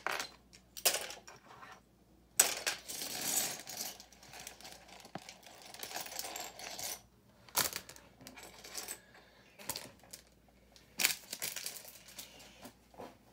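Small plastic LEGO pieces clattering and clicking against each other as they are handled and sifted through, with a longer spell of rattling about two and a half seconds in and scattered sharp clicks after it.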